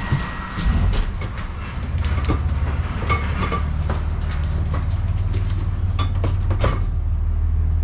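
Long cardboard boxes being handled and stood on the trailer floor, with scattered knocks and scuffs, over a steady low drone that builds about a second in and runs on.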